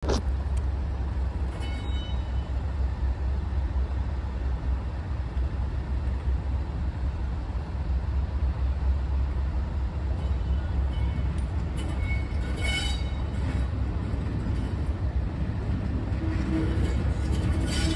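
Class 37 diesel locomotive 37075 approaching slowly, its English Electric V12 engine giving a steady low rumble. A steadier, higher tone comes in near the end.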